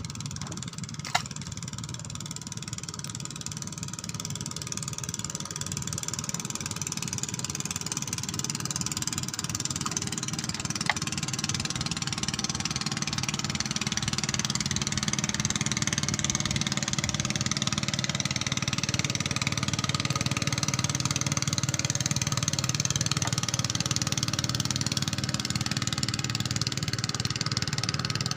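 An engine running steadily, growing gradually louder over the first half, with a couple of brief clicks.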